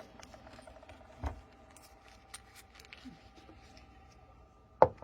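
Faint clicks and taps of a padlock and small metal parts being handled, with a duller knock about a second in and two sharp, louder clicks near the end.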